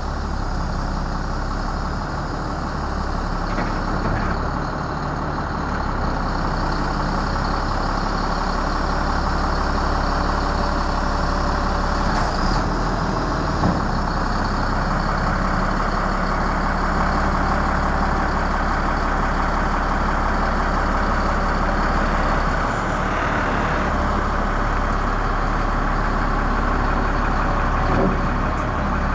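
Diesel engine of a 2006 Freightliner M2 rollback truck running steadily while the hydraulic rollback bed is brought down from its tilt to level, with a few light clicks along the way.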